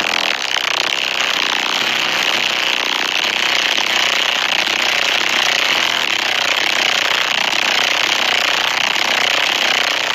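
A car stereo playing extremely loud bass, heard from right beside the car: a steady buzzing rattle from the vibrating door panels and window glass.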